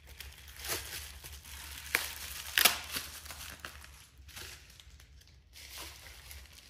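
Plastic packaging bag being crinkled and torn open by hand: a run of rustling with several sharp crackles and rips, the loudest about two and a half seconds in.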